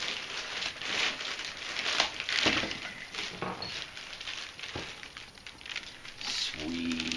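Plastic wrapping crinkling and cardboard rustling as a plastic-bagged model yacht hull is pulled out of its shipping box, with a couple of soft knocks.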